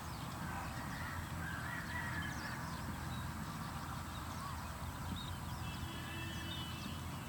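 Open-field ambience: scattered bird calls and short chirps over a steady low rumble, with a wavering call about two seconds in and a brief trill near the end.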